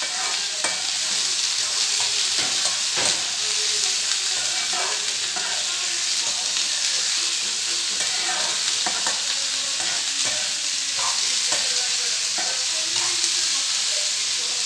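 Chopped green beans sizzling in hot oil in a kadai while a metal spoon stirs them, with frequent light scrapes and knocks of the spoon against the pan. The beans are being stir-fried for a poriyal.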